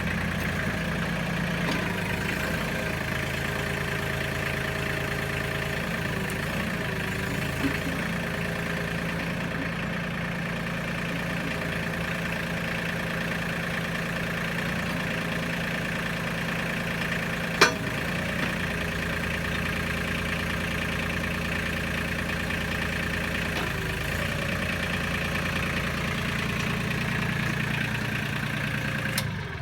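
Mahindra 1526 compact tractor's diesel engine running steadily, with one sharp clank about eighteen seconds in.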